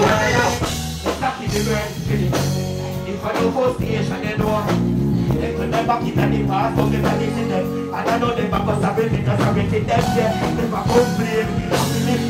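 Live dancehall performance through a stage sound system: a backing track with a strong bass line, with a deejay's vocals over it on the microphone.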